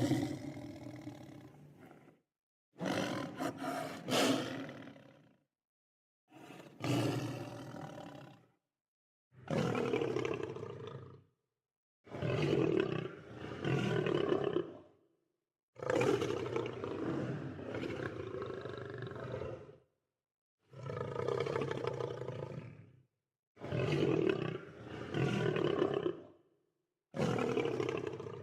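Lions roaring and growling in a string of nine separate calls, each two to four seconds long, with dead silence between them.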